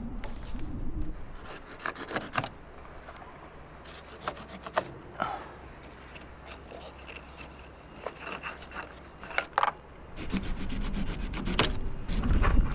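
Irregular rubbing and scraping with sharp clicks as a small hand tool works at the cord lashing around a wooden block. A low rumble comes in about ten seconds in.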